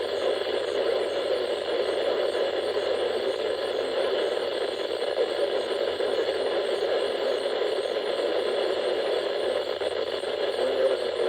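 Steady radio static from a weather radio receiver with no intelligible signal coming through.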